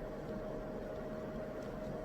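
Steady white-noise background with a constant mid-pitched hum running through it, even and unchanging, like a machine drone.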